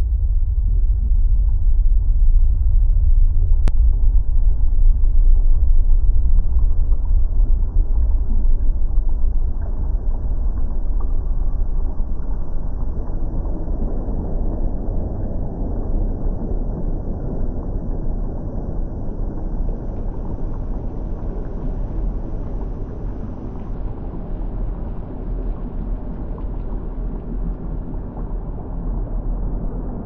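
Bubbling volcanic lava sound effect: a continuous deep rumble, heaviest in the lowest bass, easing slightly after the first ten seconds.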